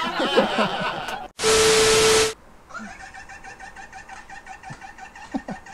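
Brief laughter, then a loud burst of static hiss with a steady beep lasting about a second. After it, a vehicle engine cranking on its starter without catching: a steady whine with rapid even pulsing.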